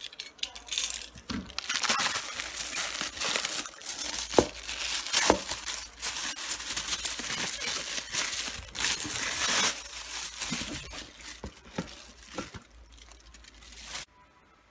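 Packaging crinkling and rustling as it is handled and unwrapped during a lightstick unboxing, with a few light taps; it stops abruptly near the end.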